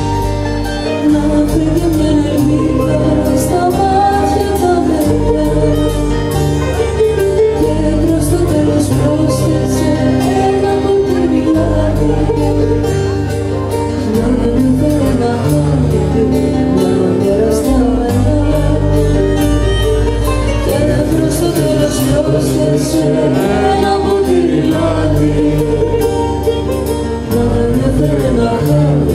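Live band playing a Greek song: a woman sings lead into a microphone over acoustic guitar, electric bass and a drum kit.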